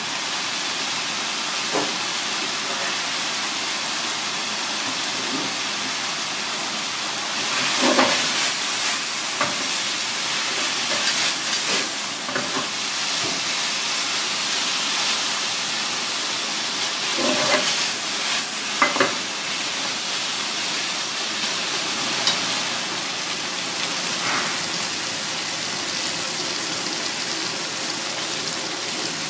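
Noodles and cuttlefish pieces sizzling with a steady hiss in a frying pan as they are stir-fried with chopsticks. Scattered clinks and knocks of the utensils against the pan cut through, the loudest about eight seconds in and between seventeen and nineteen seconds in.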